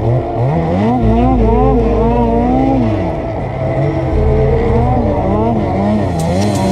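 Two-stroke snowmobile engine revving up and down over and over as the sled ploughs through deep powder snow.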